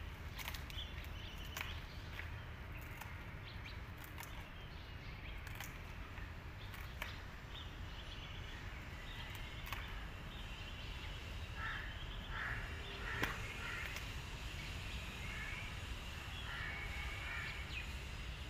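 Crows cawing repeatedly with some lighter bird chirps over a steady low rumble. The calls come thicker in the second half. A few sharp clicks stand out, the loudest about two-thirds of the way in.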